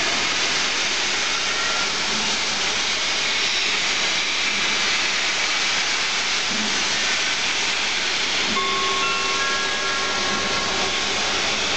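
GWR King class steam locomotive letting off a steady, loud hiss of escaping steam as it pushes its train back.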